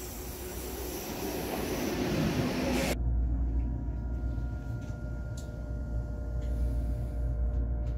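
An ICE high-speed train pulling into the station, a rising rush of noise. About three seconds in it cuts to inside the moving train: a steady low running rumble with a faint hum of steady tones over it.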